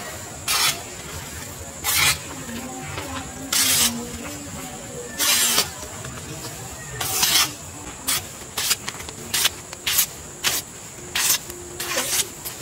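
Knife blade slicing through a sheet of printed paper card again and again, each cut a short hiss. The cuts come every second or two at first, then quicker, about one every half to three-quarters of a second, over the last few seconds.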